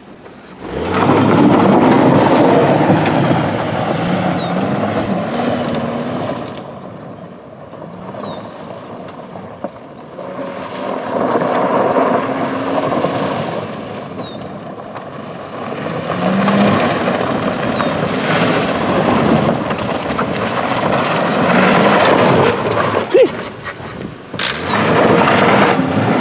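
Chevy Epica's engine revving hard as the car spins its tyres on loose gravel, the rasp of spinning tyres and flung stones mixed with the engine. The engine note rises and falls in several pulls, easing off twice along the way before coming on loud again.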